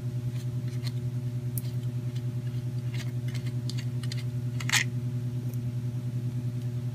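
Small plastic clicks and ticks as a GoPro camera is handled and unscrewed from its mount, with one sharper click a little before five seconds in. A steady low hum that pulses several times a second runs underneath.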